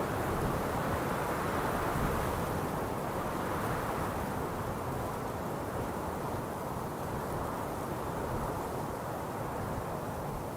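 Strong wind blowing in a steady, dense rush that swells and eases slowly.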